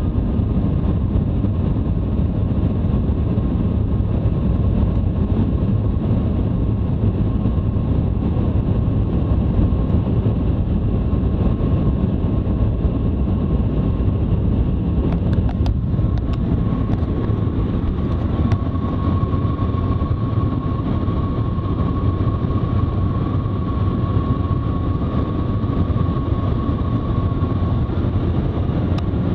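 Steady low rushing noise inside the cabin of the Shanghai maglev train running at speed, with a faint steady whine that grows stronger from about halfway through.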